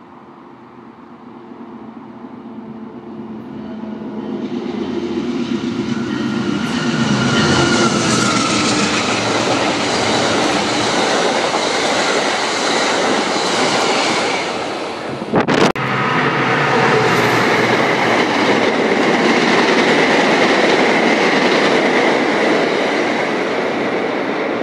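Amtrak Downeaster passenger train approaching and passing at speed. It grows steadily louder over the first several seconds, then holds as a steady rush of wheels on rail while the coaches go by. The sound breaks off for an instant about two-thirds of the way through.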